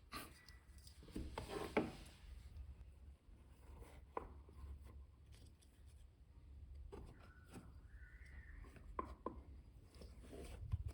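Quiet handling noises: scattered light clicks and taps with short bursts of rubbing and scraping, the loudest a little under two seconds in, and a brief squeak near the end.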